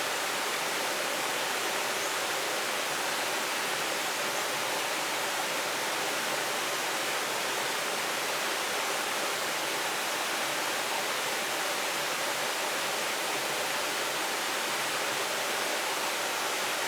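Steady rush of flowing river water, an even hiss that stays level throughout.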